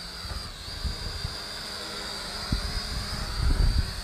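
Eachine E511 quadcopter's four coreless motors and propellers whining steadily as it hovers just after a one-key automatic takeoff, the pitch stepping up slightly about half a second in. Wind buffets the microphone with low rumbles, strongest about three and a half seconds in.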